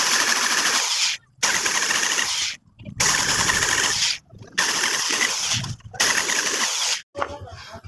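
Electric drill boring through the rivets of a Yamaha Sniper 150 clutch housing, widening pilot holes with a larger bit so the rivets can be drilled out. It runs in five bursts of about a second each with short pauses between, and stops near the end.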